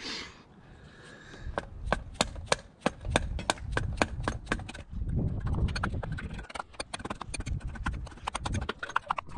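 A quick run of sharp knocks or taps, about three to four a second, starting after about a second and a half over a low rumble.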